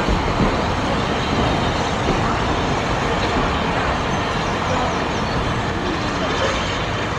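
Passenger coaches of a departing steam train rolling steadily past below, a continuous even rumble, with people's voices from the platform.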